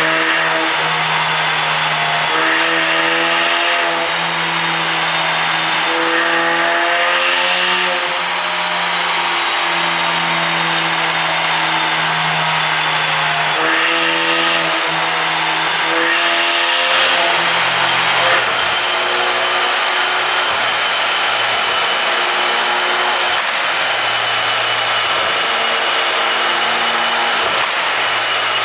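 Background music: a buzzy synth melody of held notes that change pitch every second or two, with no clear exhaust pops.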